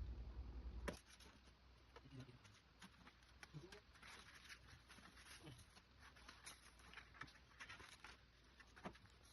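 Faint scratching and light clicks of small parts being handled during TV disassembly, scattered and irregular, after a low hum that stops about a second in.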